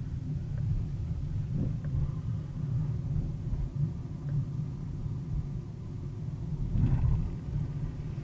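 Low, steady rumble of a car's engine and tyres on the road, heard from inside the cabin as it drives along a city street. There are a few faint ticks, and a brief louder bump about seven seconds in.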